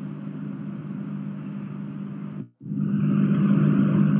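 Steady low electrical hum with hiss, the background noise of the narration recording. It cuts out for a moment about two and a half seconds in, then comes back slightly louder.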